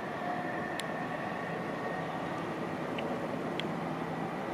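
Distant electric multiple unit approaching along the main line: a steady rumble and hiss with a faint high whine over it. A few short, sharp high sounds come about a second in and twice near three and a half seconds.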